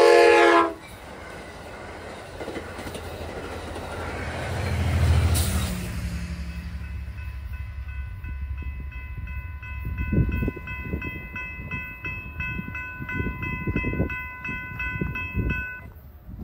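A passenger train's horn chord cuts off just after the start, then the train rumbles through the crossing, pushed by an EMD F59PHI diesel locomotive, loudest about five seconds in. Once it has passed, the crossing bell rings in rapid, even strokes until it stops shortly before the end, as the gates go up.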